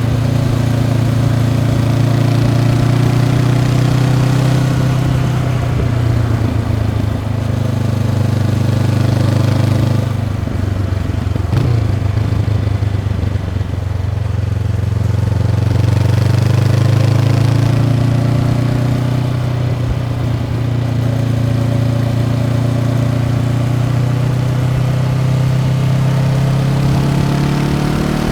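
Honda CB500X parallel-twin engine through its stock exhaust, running under way. Its note holds steady, falls off about ten seconds in, and climbs again a few seconds later.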